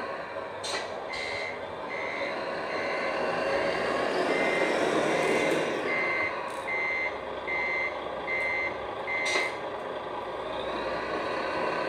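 Servonaut sound module in a 1/14 scale Volvo FH16 RC truck sounding its reversing alarm: a steady run of short high beeps, a little more than one a second, that stops near the end, over the module's simulated diesel engine running. A sharp click comes near the start and another with the last beep.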